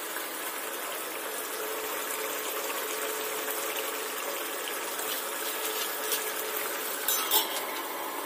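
Brinjal curry simmering in a pan on a gas stove: a steady bubbling hiss. A little after seven seconds a brief metallic clatter as a steel lid is set on the pan.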